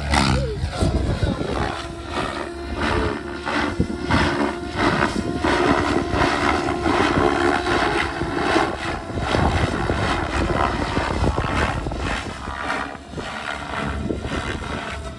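XLPower 700 V2 radio-controlled helicopter flying aerobatics: the rotor blades chop over a steady drive whine, the sound surging and fading as it manoeuvres.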